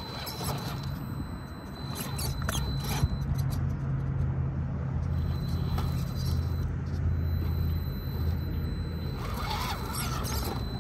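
RC rock crawler's brushed 540 motor and metal drivetrain running at crawling speed: a steady low hum with a thin high whine that comes and goes, and a few clicks about two to three seconds in.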